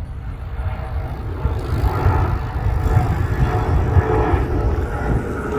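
Bombardier CRJ regional jet climbing out after takeoff, its twin rear-mounted turbofan engines giving a deep rumble and drone that grows louder.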